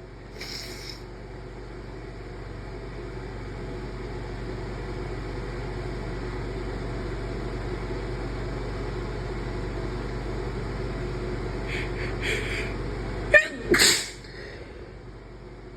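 A person's induced sneeze near the end: a few short catching breaths, then a sharp onset and the loud sneeze, over a steady background hum.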